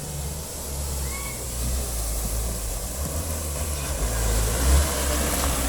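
A motor vehicle's engine running with a steady low rumble, and a rushing noise that grows louder in the second half.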